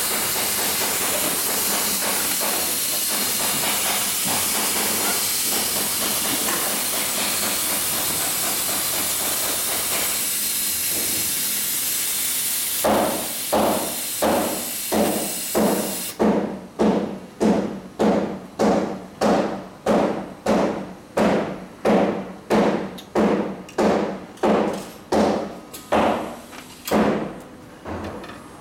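Heavy-duty cylinder-arm triple-feed industrial sewing machine: a steady rushing noise for the first half, then it sews slowly, stitch by stitch, with a regular knock about twice a second that stops shortly before the end.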